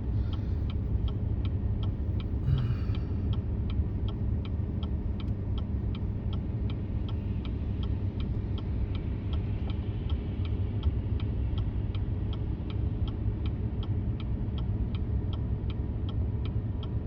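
Steady low rumble of a Chevy 3500 dually pickup towing a heavy RV, heard inside the cab, over an even rapid ticking of about three ticks a second.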